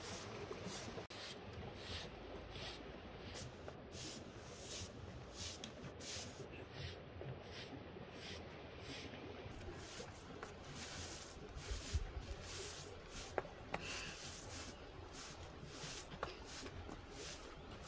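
Rhythmic rubbing strokes, about two a second, with a few faint ticks in the second half.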